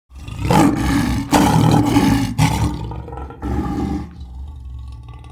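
Lion roaring: four or so rough, growling roars in quick succession over about four seconds, fading to a low rumble near the end.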